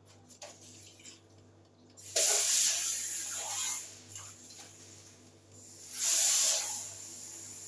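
Dirty water being poured out of a small plastic bowl into a sink, in two pours: one about two seconds in lasting over a second, and a shorter one about six seconds in.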